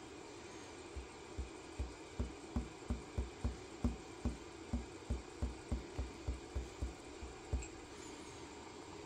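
A fingertip tapping repeatedly on the touchscreen of a Schaerer Barista coffee machine, short dull taps about three a second that stop near the end. The screen is not responding to the presses. A steady low hum runs underneath.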